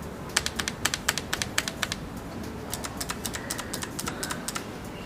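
Typing on a Coolkiller portable mechanical keyboard: a quick, uneven run of sharp key clicks as the switches are pressed.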